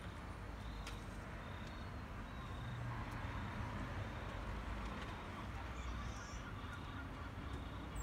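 Sea birds calling, heard as short high chirps repeating about once a second over a steady low background rumble.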